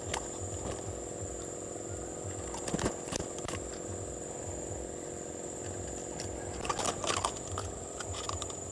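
A steady, high-pitched insect drone over a low steady hum, with a few short clicks and rattles from handling a fish grip and line, about three seconds in and again near seven seconds.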